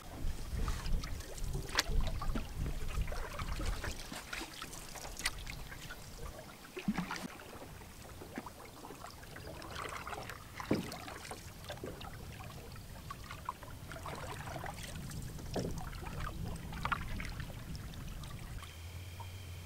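Canoe paddles dipping and pulling through lake water, with splashing and dripping and occasional sharp knocks.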